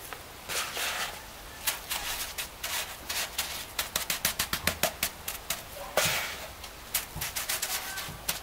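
Gloved hand patting wet fine pumice-concrete mix onto a concrete dome: runs of quick, irregular pats, with rubbing scrapes in between.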